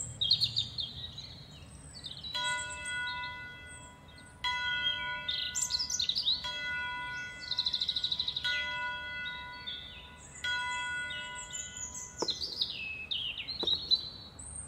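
Birds chirping and twittering throughout, while a bell tolls with a fresh stroke about every two seconds from about two seconds in until about twelve seconds. Two sharp knocks follow near the end.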